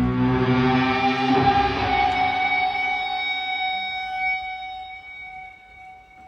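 Distorted electric guitar ringing out and fading over the first couple of seconds, leaving a few steady high-pitched ringing tones that slowly die away: feedback through the sound system.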